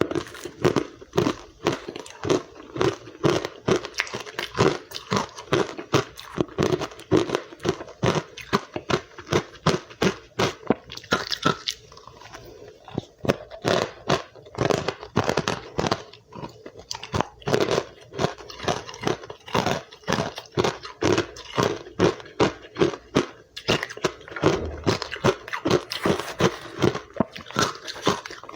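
Close-up crunching of powdery white ice being bitten and chewed, a quick steady run of sharp crunches several times a second that eases briefly midway.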